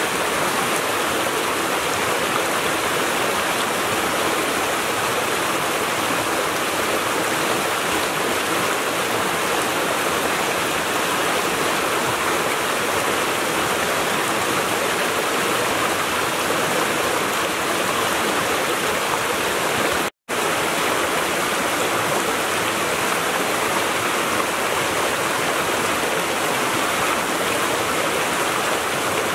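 A rocky creek rushing and splashing over small cascades and boulders, a steady, even roar of running water. It cuts out for a split second about two-thirds of the way through, then carries on unchanged.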